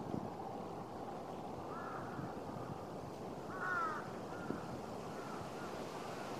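A crow cawing, a few short calls, the loudest about three and a half seconds in, over steady outdoor background noise.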